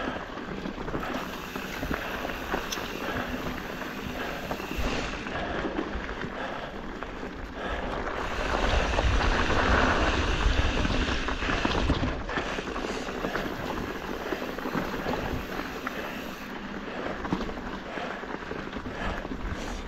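Mountain bike being ridden on a dirt trail: steady tyre and bike rattle noise with wind buffeting the microphone, swelling louder for a few seconds a little before halfway.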